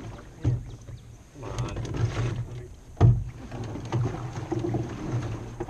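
Paddling a small john boat on a river, with two sharp knocks about half a second in and about three seconds in.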